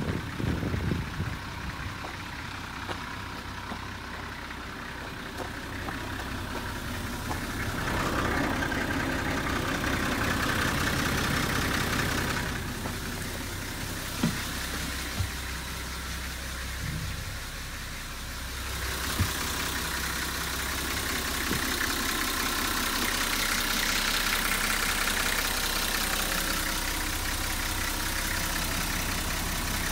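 Isuzu Journey bus's TD42 straight-six diesel idling steadily, with a few light knocks.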